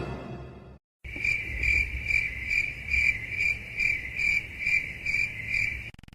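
Cricket chirping sound effect: a high, even chirp pulsing about two and a half times a second, starting about a second in and stopping shortly before the end. Before it, the tail of an eerie music cue fades out.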